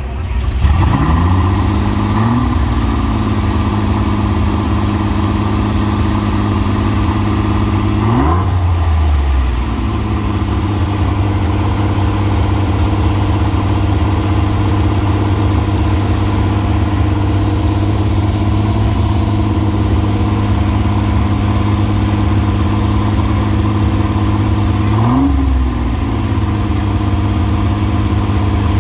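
A car engine revs up, then settles into a steady idle. It is blipped twice: a sharp blip about eight seconds in and a smaller one near the end.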